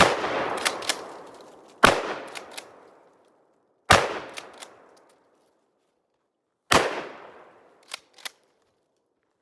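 12-gauge shotgun firing game/target loads: four shots about two to three seconds apart, each with a fading echo and a few short cracks after it.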